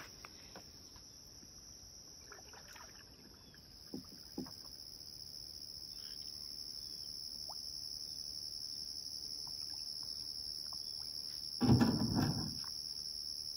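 Insects, crickets or cicadas, droning steadily in a high tone that grows louder a few seconds in. Two soft knocks come around four seconds, and a brief louder low thump or rustle comes near the end.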